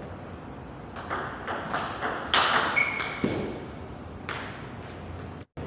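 Table tennis rally: the ball clicking off the bats and the table several times a second, loudest in the middle. There is a brief high squeak about three seconds in.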